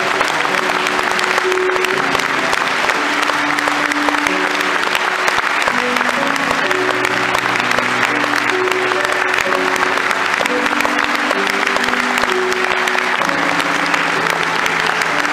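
A large audience applauding steadily over slow music with long held notes.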